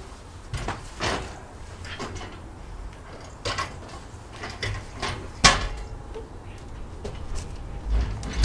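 Irregular knocks and clanks of a Flat Dog roof rack frame being lifted and shifted onto a Land Rover Defender's roof, the loudest knock about five and a half seconds in.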